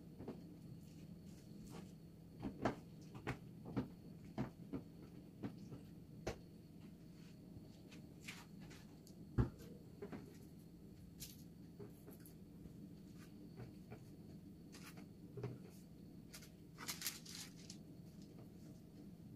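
Scattered light taps and clicks of things being handled in a kitchen, with one sharper knock about halfway through and a small flurry near the end, over a steady low hum.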